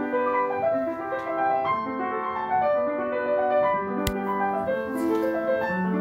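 Background piano music: a gentle run of single notes. A short click about four seconds in.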